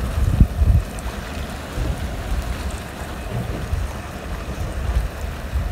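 A 300 hp outboard motor running as a cabin boat moves slowly through thin broken ice, with wind buffeting the microphone in a gusty low rumble.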